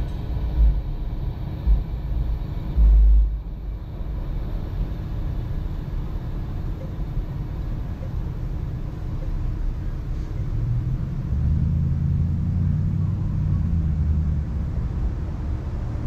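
Low, steady engine rumble, with a pitched low drone coming in about eleven seconds in. A few low thumps of wind on the microphone in the first three seconds, the loudest about three seconds in.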